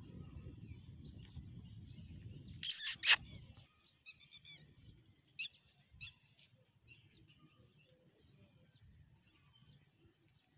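Chicks cheeping in short high chirps, scattered from about four seconds in. Before them a low rumbling noise runs for the first three seconds or so, broken by a loud, sharp double burst, the loudest sound here, near the three-second mark.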